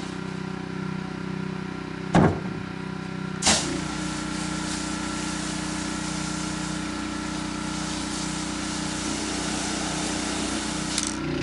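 Gas-engine pressure washer running steadily. Two sharp knocks come about two and three and a half seconds in. At the second knock a steady spray hiss starts and the engine note firms up under load, as water is sprayed, and the hiss stops shortly before the end.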